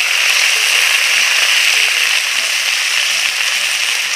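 Wet boiled greens (tita saag) frying in hot mustard oil in an iron kadhai with fried potatoes and onion: a loud, steady sizzle.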